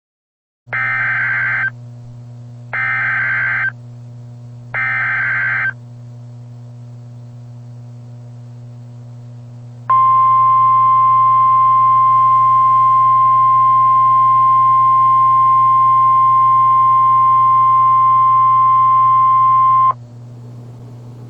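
Emergency Alert System tones: three short bursts of warbling digital data tones (the SAME header), each about a second long and a second apart, then, after a pause, a single steady high alert tone held for about ten seconds, in the style of the National Weather Service alarm. A constant low hum runs underneath throughout.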